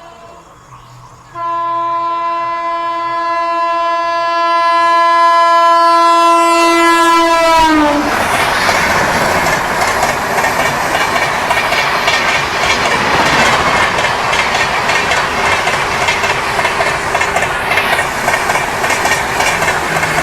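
Indian Railways express train running through a station at speed: the locomotive's horn breaks off briefly, then sounds again in one long blast of about six seconds whose pitch drops as the locomotive passes. The loud rumble and clatter of the coaches running through follows for the rest of the time.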